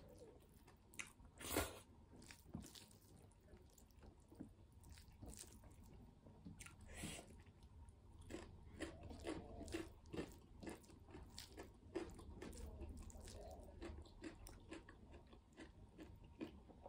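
Faint, close chewing of a mouthful of maize rice mixed with fried kinema and dry meat, eaten by hand, with scattered short crunches and wet smacks; one sharper smack about a second and a half in.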